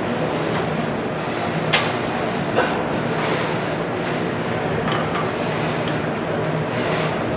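Steady hum and noise of a large hall. About two seconds in come two sharp clacks just under a second apart, and later a fainter one, from solar racking parts being handled on a workbench.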